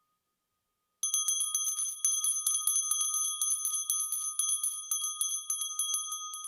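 Altar bells, a cluster of small hand bells, shaken rapidly and without pause, starting about a second in and stopping at the end. This is the bell ringing at the blessing with the Blessed Sacrament during Benediction.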